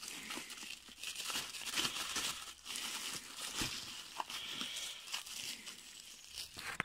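Plastic bubble wrap crinkling and crackling as it is pulled open and unwrapped by hand, in irregular bursts of rustle.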